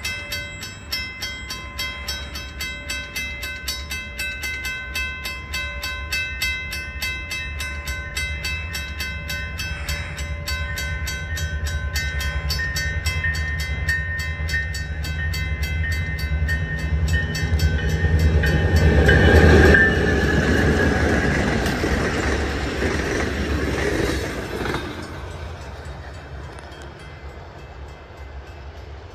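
Level-crossing warning bell ringing in rapid, even strokes over a low rumble from an approaching CN freight train's diesel locomotive. The rumble grows and is loudest as the locomotive passes, about two-thirds of the way through. A few seconds later the bell stops and the train noise fades as it moves away.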